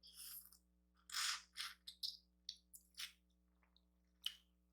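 Mukbang eating noises over a seafood boil: a string of short, wet mouth sounds, chewing and smacking, in quick irregular bits.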